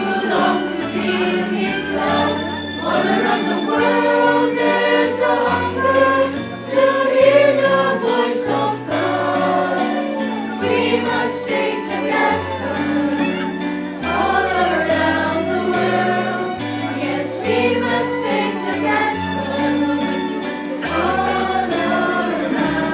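Christian music with a choir singing over a moving bass line and regular percussion hits.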